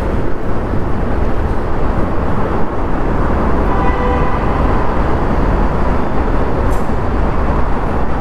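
Steady riding noise from a Yamaha Aerox 155 scooter at speed: heavy low wind rumble on the mic mixed with road and engine noise. A faint whine rises and fades about four seconds in.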